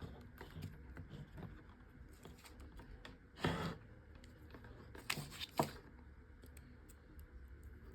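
Faint handling noise of multimeter probe leads being moved onto transformer wires: light clicks and rustles, with a louder short scrape about three and a half seconds in and two more about five seconds in.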